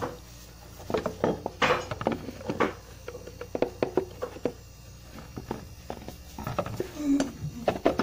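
Plastic drip tray of a refrigerator compressor being pushed into its holder on top of the compressor: a run of irregular plastic clicks, knocks and scrapes.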